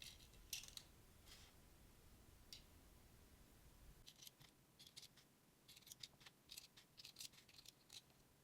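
Near silence, with faint scattered small clicks and scratches, a few early on and more in a cluster over the second half.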